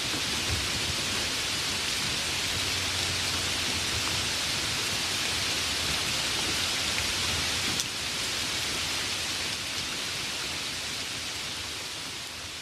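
Heavy rain falling in a steady, dense hiss, beginning to fade out over the last few seconds.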